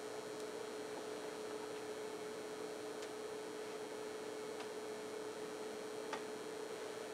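Steady electrical hum from the sound system or recording chain, a constant mid-low tone with a few faint clicks.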